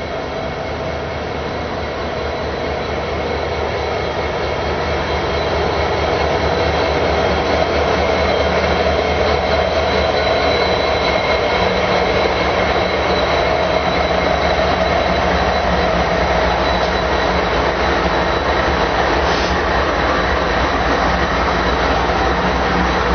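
Two diesel locomotives, an EMD SD70M-2 and a GE D9-40CW, approach and pass at the head of an empty coal train, growing louder over the first several seconds. Empty coal hoppers then roll by with a steady rumble of wheels on rail.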